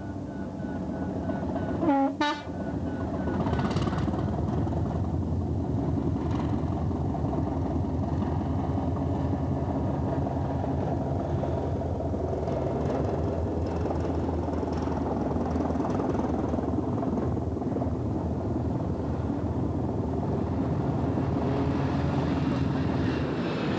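Hastings diesel-electric multiple unit (Class 203 'Hastings DEMU') giving a short horn blast about two seconds in, then passing close by with its diesel engine running and its wheels clattering on the rails.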